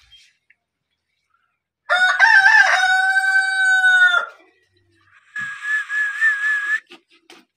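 A rooster crows once, a loud call of about two seconds that wavers at the start and then holds steady. About a second later comes a single breathy, wavering whistle lasting about a second and a half.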